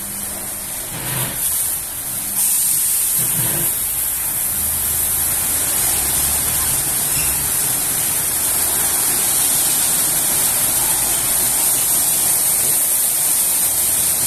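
Automatic rollover car wash running: rotating brushes working over a car amid spraying water, a steady rushing noise. A louder, sharp hiss comes on about two seconds in and holds.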